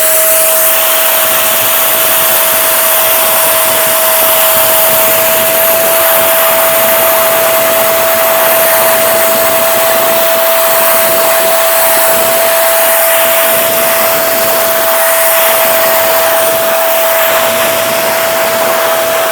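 Shakti vacuum cleaner running steadily at full power with a high, even motor whine over loud rushing air, used to suck up a pile of wet sand.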